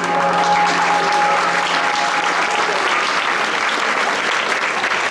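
A crowd of onlookers applauding, the clapping dense and steady, while the last held notes of a pop ballad fade out over the first half.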